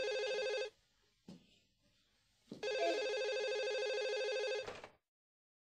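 Red corded landline telephone ringing with an electronic warbling ring: the tail of one ring, a short pause with a faint click, then a second ring of about two seconds that cuts off as the handset is reached for and lifted.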